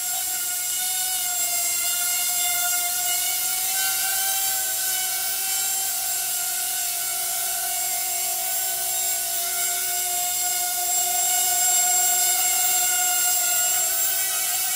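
Hubsan H107D X4 micro quadcopter hovering, its four small brushed motors and propellers giving a steady high whine made of several tones, with slight wobbles in pitch as the throttle is adjusted. It grows a little louder near the end as the quad comes closer.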